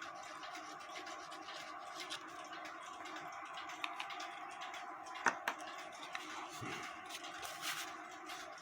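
Faint scratching and rustling of hands working a cuckoo clock bellows while gluing it, with two small sharp clicks about five seconds in, over a steady faint hum.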